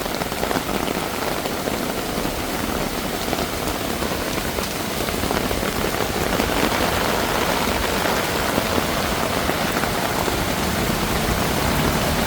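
Heavy rain falling, a steady hiss that grows a little louder about halfway through.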